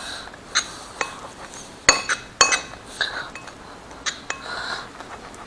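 Metal spoon stirring slime in a ceramic plate: irregular sharp clinks against the plate, each ringing briefly, with soft wet scraping between them as glue and borax water are mixed.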